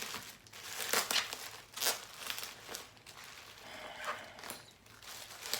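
Packing material being handled while a shipping box is unpacked: bubble wrap and plastic crinkling and crackling in irregular bursts, the loudest about one and two seconds in.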